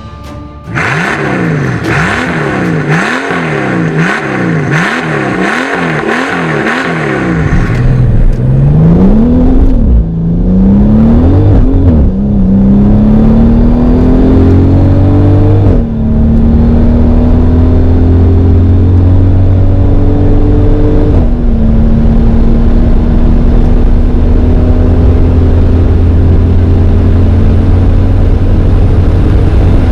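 Brabus Rocket 900's twin-turbo V12 engine revved in about seven quick blips, then pulling hard at full throttle up through the gears. The pitch rises in each gear and drops at each upshift, about four of them. The later gears climb ever more slowly into a long, nearly steady run at high speed.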